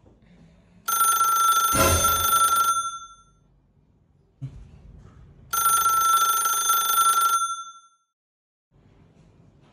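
Mobile phone ringing with an incoming call, a bell-like ringtone sounding in two rings of about two seconds each, a few seconds apart. A short dull thump comes during the first ring.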